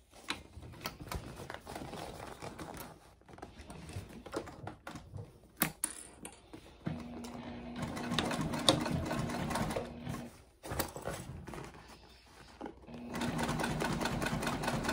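Juki TL2010Q straight-stitch sewing machine running, stitching through layered cork fabric: it runs steadily for about three seconds starting around seven seconds in, and again for the last two seconds. Before it starts, the bag pieces rustle and click as they are positioned under the foot.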